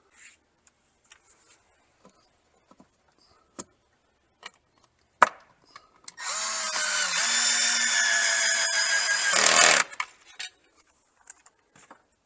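Power drill driving a screw into the wall: a few light handling clicks and a sharp knock, then the motor runs for about three and a half seconds, its pitch sagging briefly under load, and stops suddenly.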